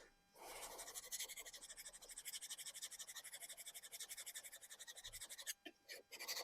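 A Japanese kitchen knife blade scraping on a whetstone in quick, even back-and-forth strokes, a steady rhythmic rasp. It stops about five and a half seconds in, leaving a few separate scrapes.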